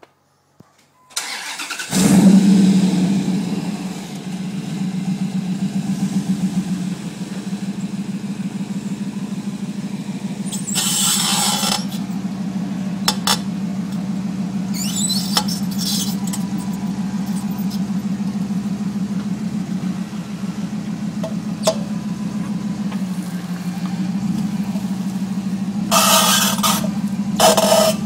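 A 2003 Dodge Ram 1500's 5.7-litre Hemi V8 starts up about two seconds in and then idles steadily. Several short squeaking bursts come from the front wheels, around eleven, fifteen and twenty-six seconds in and once more near the end. The cause is unknown to the owner, who has found the brake rotors smooth.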